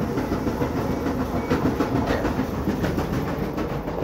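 Clothes dryer running, a loud steady tumbling rumble with rapid clattering from the drum.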